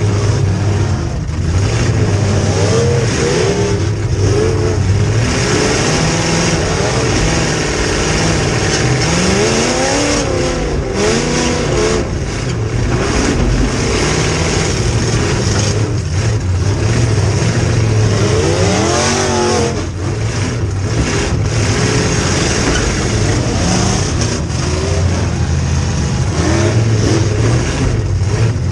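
Demolition derby car's V8 engine running hard and revving, heard from inside the stripped car, its pitch climbing and dropping in repeated sweeps, most strongly about nine and nineteen seconds in, over a steady low drone.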